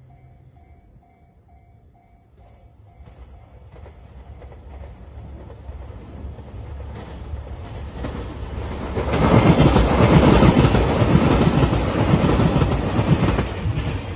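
A level-crossing warning bell ringing in a steady repeated beat, which stops about two seconds in. A JR Shikoku 2700 series diesel limited-express train then approaches and passes over the crossing, with wheels clattering over the rail joints. It is loudest from about nine to thirteen seconds in and fades near the end.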